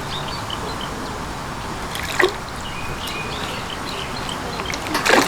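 Steady trickling and dripping of water at a fishing pond, with faint chirps and two sharp knocks or splashes, one about two seconds in and one near the end.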